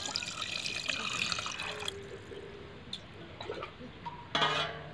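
A thin stream of water pouring and splashing into a clay pot full of small fish as they are rinsed. A brief louder noise comes near the end.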